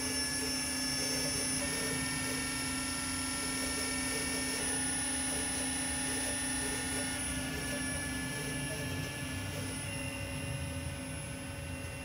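Brother TC-32BN-QT CNC drill-and-tap centre powered up and running: a steady hum with several high whining tones that change abruptly a few times.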